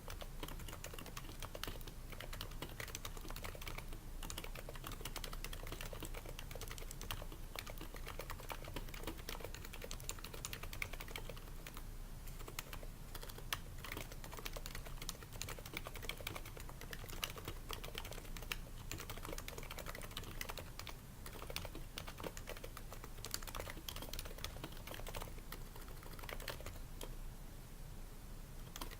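Continuous typing on a Happy Hacking Keyboard Professional 2 with Topre electrostatic capacitive switches, damped with o-rings and lubed slider rails in a case lined with shelf liner: a dense, steady patter of muted keystrokes with an occasional louder stroke.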